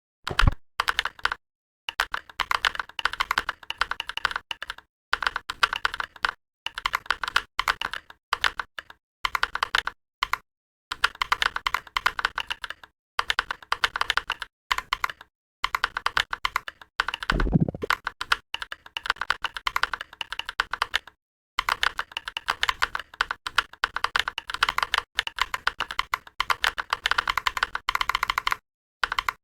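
Mechanical keyboard keystrokes from a Mechvibes sound pack sampled from Holy Panda tactile switches, played back as fast typing. The keystrokes come in runs of a second or two with short, completely silent pauses between them, and one deeper, heavier key thud comes about halfway through.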